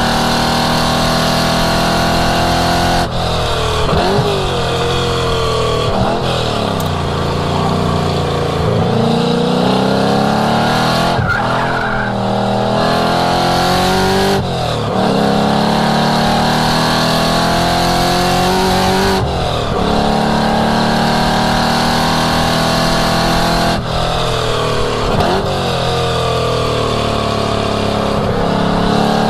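1967 Mustang's engine running hard on a race track, its note climbing steadily with speed and then dropping sharply about five times as the driver shifts or lifts for corners.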